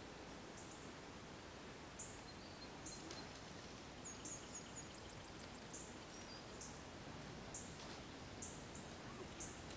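Quiet outdoor ambience: a faint steady hiss with scattered short, high bird chirps, including a quick run of them about four seconds in.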